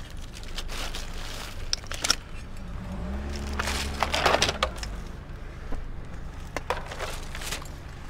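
Clattering knocks and clicks of discarded computer parts being handled and sorted through. A low vehicle engine hum rises and passes in the middle.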